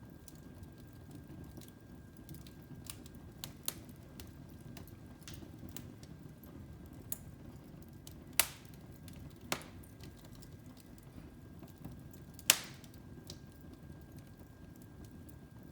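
Wood fire in a fireplace crackling: a low, steady rush of burning with scattered sharp snaps, three louder pops in the second half.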